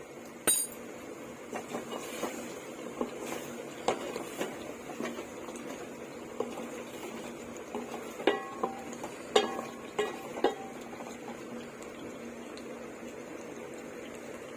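A metal spoon stirs curry in a cooking pot, clinking and knocking against the pot's sides. A cluster of louder ringing clinks comes about eight to ten and a half seconds in.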